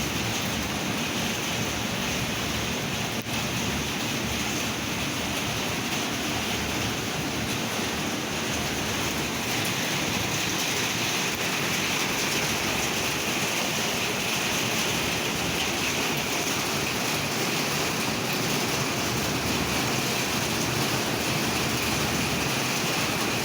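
Steady rushing hiss of heavy rain and wind in a storm, even and unbroken.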